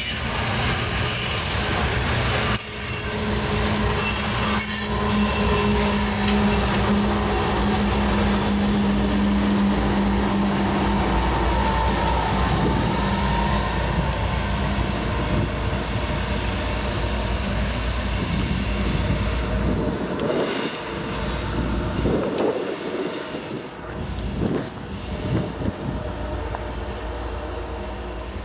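Loaded coal train passing close by: steel wheels on the hopper cars squealing and clacking over the rails. The noise stays loud and steady, then drops off and turns uneven after about twenty seconds as the train moves away.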